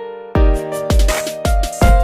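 Electronic music: a synth melody over a deep kick drum hitting about twice a second.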